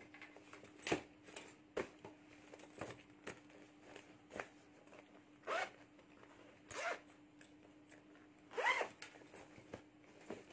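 Zipper on a handmade handbag being pulled, in short strokes, amid rustling of the bag's plastic-covered fabric as it is handled; three louder zip strokes come about halfway through and near the end.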